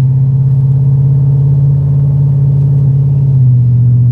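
LS V8 engine in a 1988 Ford Bronco running at a steady speed through its true dual stainless exhaust, a loud, steady low drone.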